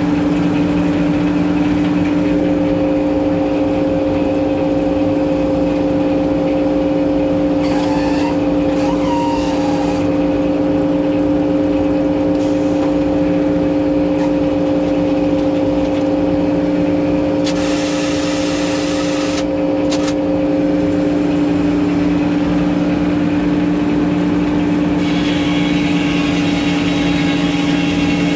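An engine running steadily at one even speed, its hum unchanging. A brief hiss comes in about eight seconds in and again about eighteen seconds in.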